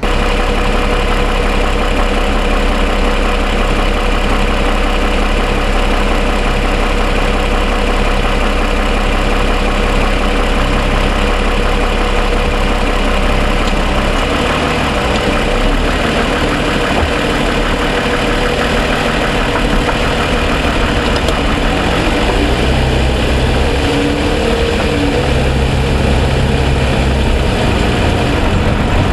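A 2007 Toyota Sienna's 3.5-litre V6 idling steadily, with a ticking that the dealer put down to piston slap. The low rumble shifts and swells from about halfway through.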